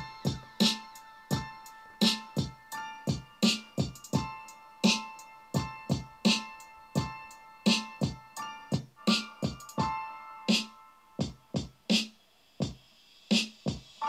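Electronic music played through a Sound Freaq Sound Kick portable speaker: a steady drum-machine beat under held keyboard chords.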